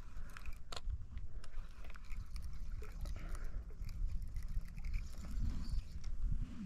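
A spinning reel being cranked to wind in a bottom fishing line, with irregular clicks and knocks from the reel and rod over a steady low rumble.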